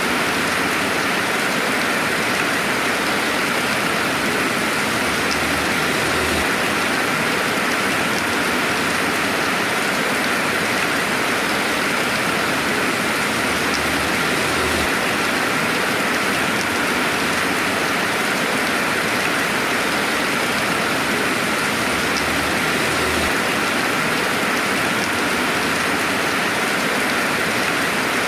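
Steady, even rainfall, a dense hiss of rain with no thunder.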